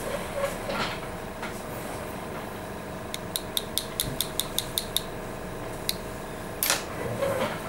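A series of about ten light, quick clicks, about five a second, from the ceramist's instrument tapping the stone model to condense the wet dental porcelain. Under it runs a steady mechanical hum, with a couple of handling knocks and clinks near the start and near the end.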